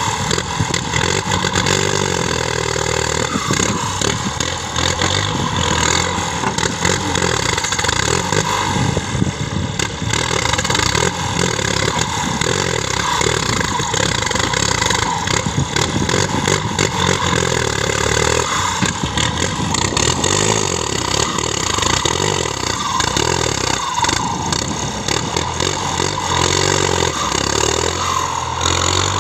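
An engine running continuously with the clatter of working machinery, its pitch rising and falling now and then.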